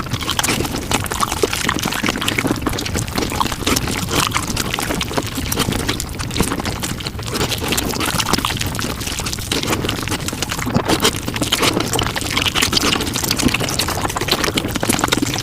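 Close-miked mukbang chewing and mouth sounds played at five times speed. They run together into a dense, continuous crackle of tiny clicks.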